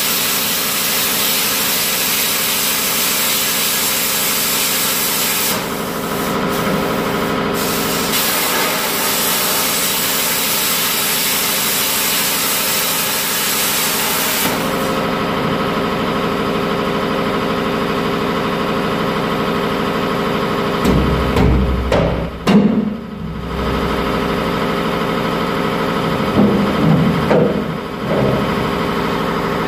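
Plasma cutter hissing steadily as its arc cuts an opening through a trailer's sheet-metal wall, stopping about halfway through. An engine idles steadily underneath throughout, and a few louder knocks come in the second half.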